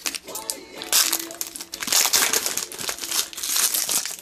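Foil trading-card pack wrapper crinkling in bursts as it is handled and opened.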